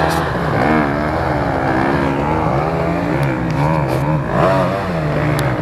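Several enduro dirt bike engines revving hard and easing off as they work up a steep muddy climb, their pitch repeatedly rising and falling and overlapping.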